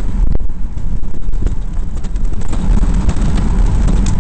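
Wind buffeting the microphone of a camera on a moving vehicle: a loud, uneven low rumble with scattered knocks over road noise.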